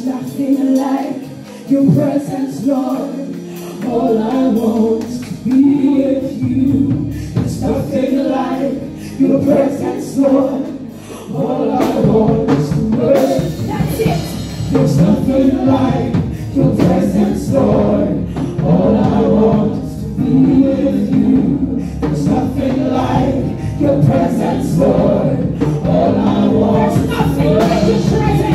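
Live gospel worship singing: a woman leads into a microphone with other voices joining, over instrumental accompaniment. The low end of the accompaniment comes in about four seconds in and fills out about twelve seconds in.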